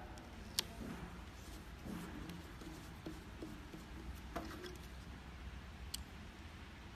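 Handling noise from a plastic HIFU cartridge being worked by hand: light rubbing and a few sharp clicks, the loudest just after the start, others about four and six seconds in, over a low steady hum.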